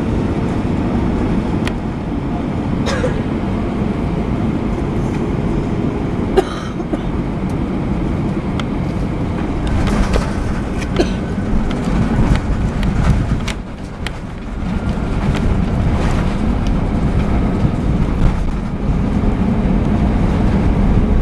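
Airliner cabin noise during the landing rollout: a steady low rumble of the jet engines and the wheels on the runway as the plane slows, with scattered small clicks and rattles. The rumble drops off briefly a little past halfway, then builds again.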